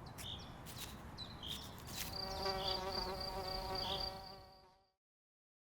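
Insects buzzing: a steady hum sets in about two seconds in, then fades out to silence near the end.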